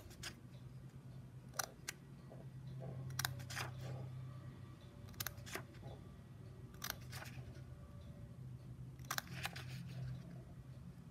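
Scissors making short snips into the edge of a book's paper pages, one quick snip about every one and a half seconds, over a faint steady low hum.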